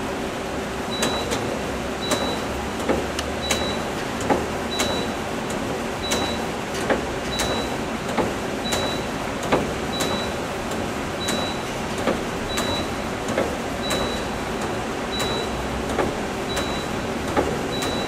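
Okuma LU25 CNC lathe running with a steady hum, its tool turret indexing over and over: a clunk or knock with each move and a short high beep about every 1.3 seconds.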